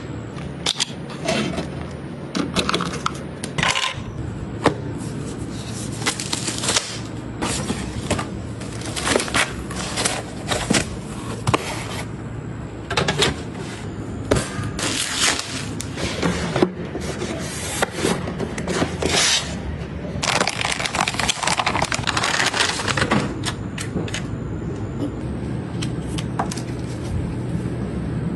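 Irregular clicks, knocks and short scrapes of computer parts being handled and fitted during a PC build, with a low hum underneath.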